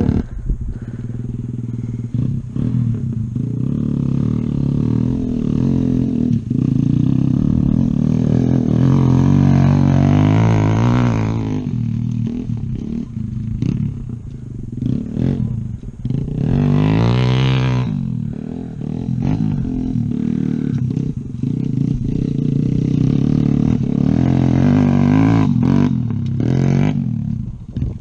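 Kawasaki Z125 single-cylinder motorcycle engine running on dirt, revving up and easing off, with the clearest rise about ten seconds in and again about seventeen seconds in.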